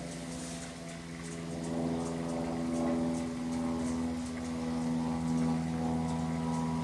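Steady mechanical hum of a running motor: a low drone with several overtones, growing a little louder about two seconds in, with faint scattered high ticks over it.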